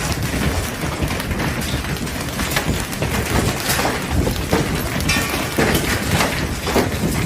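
Hailstones pounding on a roof: a dense, irregular clatter of hard impacts over a steady rush of falling ice.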